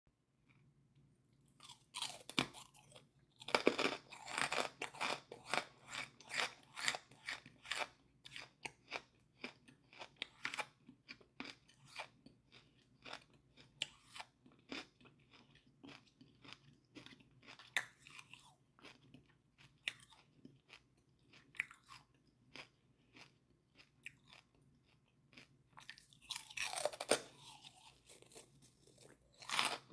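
Close-miked crunching and chewing of a chunk of charcoal: sharp, separate crunches as it is bitten and ground between the teeth. The crunches come thick and fast from a couple of seconds in to about ten seconds, thin out through the middle, then bunch up again near the end.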